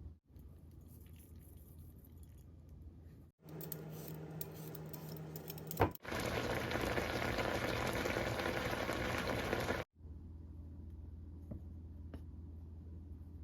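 Kitchen cooking sounds in several short edited cuts. The loudest is a steady hiss of liquid, about four seconds long, that starts about six seconds in and cuts off suddenly. A sharp click comes just before it.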